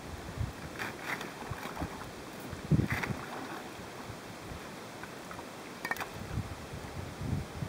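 Thin sheet ice cracking and clinking as it is broken by hand and waded through, with water sloshing. There are a few sharp cracks, the loudest about three seconds in, and wind buffets the microphone.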